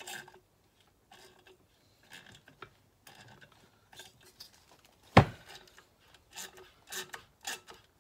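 A hand tool scraping and turning on a bolt of a Stihl TS350 cut-off saw engine: short metal-on-metal scraping strokes, coming about two a second near the end. One sharp knock about five seconds in is the loudest sound.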